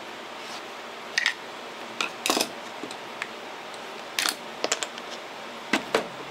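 Handling clicks and clacks as a screwdriver is set down and a plastic flashlight mount is pried and pulled out of a freeskate: about seven sharp knocks, some in quick pairs, over a steady hiss.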